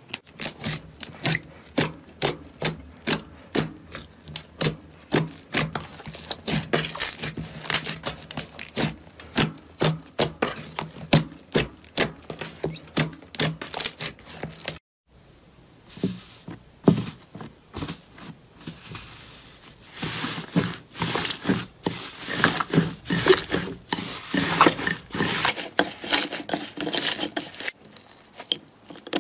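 Hands pressing, folding and stretching slime, giving sharp sticky clicks and pops several times a second. About halfway the clicks break off and give way to a denser crackling as another slime is squeezed.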